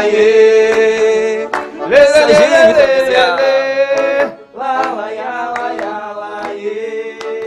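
Live forró band music: held accordion-style chords over sharp percussion strikes, with some singing. It drops to a softer level about four seconds in as the song winds down.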